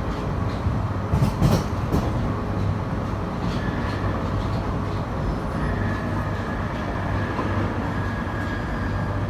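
London Underground 1995 stock train running between stations, heard from inside the carriage: a steady low rumble with a few sharp clicks about a second and a half in. A faint high whine joins in the second half.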